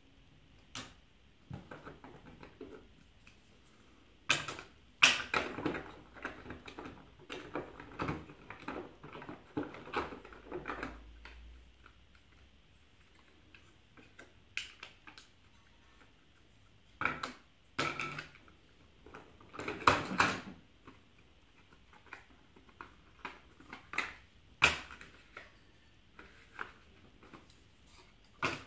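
Cardboard board-game tiles and boards being handled, lifted out of a 3D-printed tray insert and set down on a wooden table: irregular clicks, taps and short bursts of clatter, with quiet gaps between.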